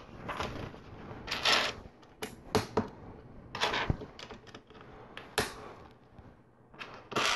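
LEGO plastic pieces clicking: scattered sharp clicks and short rattles as loose pieces are picked from a pile on a hard tabletop and small tiles are pressed onto the model.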